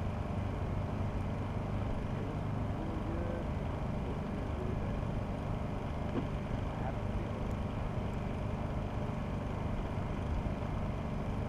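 Steady low rumbling background noise, with a few faint short tones here and there.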